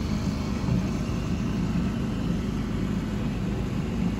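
A sailing yacht's motor running steadily, a low even drone that does not change.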